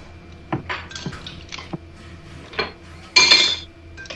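Dishes and utensils clattering as kitchen work goes on: a string of light clinks and knocks, then a louder clatter with a ringing tone about three seconds in.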